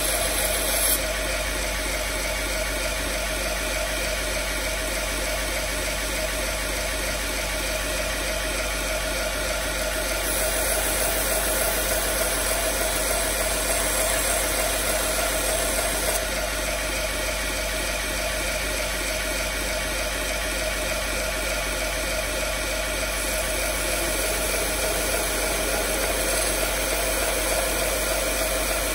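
Belt grinder with a 120-grit belt running steadily, a continuous motor whir and belt hiss. The high hiss turns brighter for several seconds at a time, most clearly about a third of the way in.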